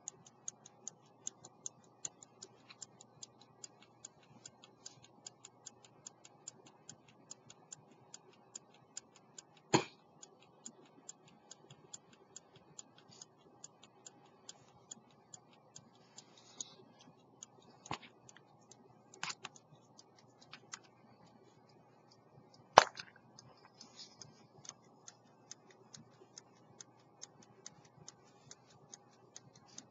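18th-century London silver fusee-chain verge pocket watch ticking rapidly and evenly, running again after repair of its broken fusee chain. A few louder knocks break in as the watch is handled, the loudest about 23 seconds in.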